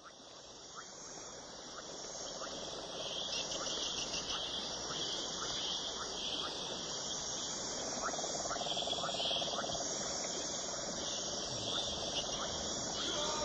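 A steady chorus of chirping insects, fading in over the first few seconds.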